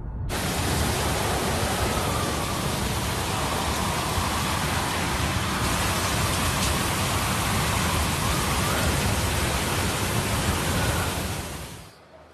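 Hurricane wind and driving rain: a dense, steady rush of noise with a faint wavering whistle through it. It cuts in suddenly and fades out near the end.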